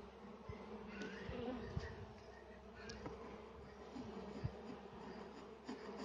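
Honeybees (Apis mellifera) buzzing steadily over an open hive, with scattered light clicks and scrapes of a hive tool working the dirt off the wooden frame bars.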